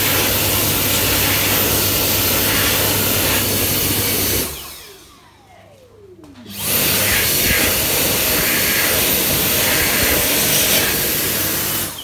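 Dyson Airblade dB (AB14) hand dryer blasting air with a thin high whine over the rush, triggered by a hand in the slot. It cuts out about four and a half seconds in, its motor winding down with a falling whine, then starts again about two seconds later and runs until it cuts out again near the end.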